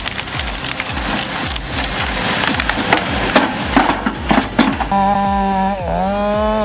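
Wood cracking and splintering in a dense run of snaps, typical of branches being stripped from a log by a harvester head. About five seconds in, a steady motor tone takes over, dipping briefly under load and recovering. A steady music beat runs underneath.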